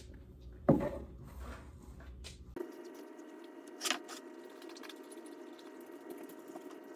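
Quiet room with a faint steady hum and two light taps, a sharp one under a second in and a softer one near four seconds in, from paintbrushes and paint pots being handled on the table.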